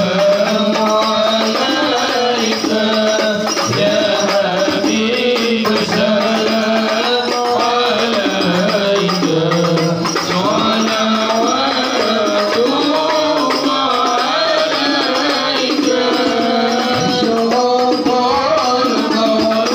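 Voices singing Arabic shalawat, devotional praise of the Prophet, to a steady beat of hand-struck frame drums (rebana).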